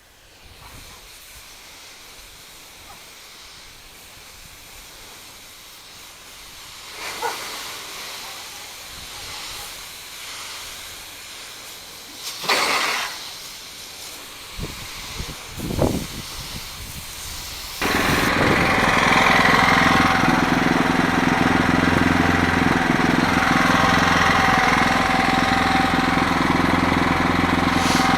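Soft-wash spray hissing onto the house, with a few louder swells and knocks midway. About two-thirds of the way through, a loud steady engine drone cuts in abruptly and runs on.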